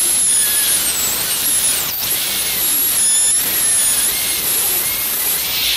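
High-speed dental handpiece with a carbide bur cutting depth grooves into a plastic typodont molar: a high-pitched whine over a hiss, dipping in pitch now and then as the bur bears on the tooth, then cutting off near the end.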